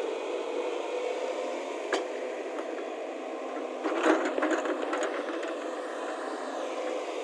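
JCB excavator's engine running steadily, with a single knock about two seconds in and a brief burst of knocks and rattles near the middle.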